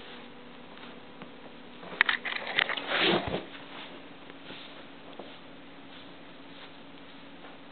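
Light clicks and rustling for about a second, some two seconds in, over a faint steady low hum.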